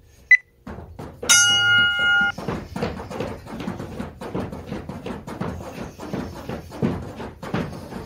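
An interval timer gives a short beep, then a buzzer tone about a second long, signalling the start of a work round. Then heavy battle ropes slap the floor mats in a quick, steady run of thuds.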